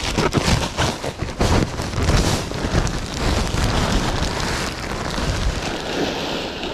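Shredded wood mulch pouring out of a plastic bag onto a garden bed: a dense, crackling rustle, mixed with the crinkle of the plastic bag as it is tipped and shaken. It is a little less busy in the second half.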